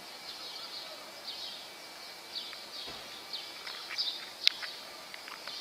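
Small birds chirping over steady outdoor background noise, with many short high chirps, several falling in pitch, and a sharp click about four and a half seconds in.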